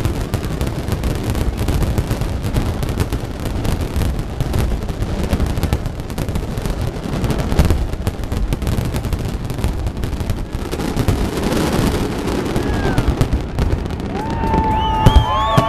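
Finale barrage of a large aerial fireworks display: a dense, continuous volley of shell bursts and crackle with heavy low booms. Near the end, high gliding whistles come in over the bursts.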